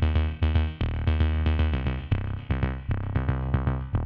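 Background electronic music: short plucked synthesizer notes over a deep bass and a steady drum-machine beat.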